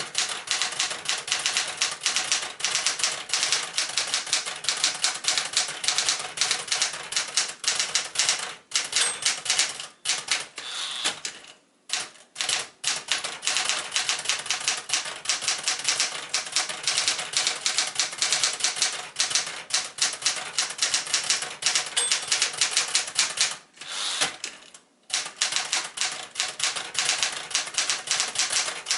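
A 1974 Smith-Corona Galaxie Twelve manual portable typewriter being typed on rapidly: a fast, dense run of key and typebar strikes, with short breaks about twelve seconds in and again near twenty-five seconds.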